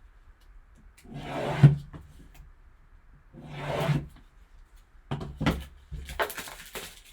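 Cardboard of a sealed trading card box sliding and rubbing as it is worked open: two drawn-out scrapes, each ending in a sharp snap, then a run of clicks and knocks near the end.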